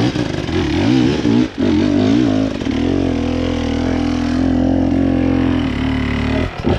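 Dirt bike engine revving as it climbs: the pitch swings up and down with the throttle for the first few seconds, then holds steady before dropping away sharply near the end.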